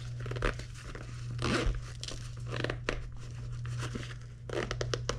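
Zipper on a small fabric belt pouch being worked closed, with the fabric rustling as it is handled, and a quick run of clicks near the end.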